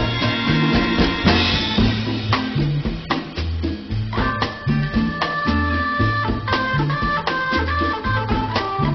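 Music with drums and a repeating bass line; sustained higher notes come in about four seconds in.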